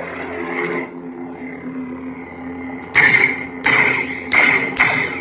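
Lightsaber sound-board hum from the CFX board playing the Survivor sound font through the hilt's speaker, steady for about three seconds. Then four sudden loud crackling hits, about half a second apart, the board's blade-clash effects.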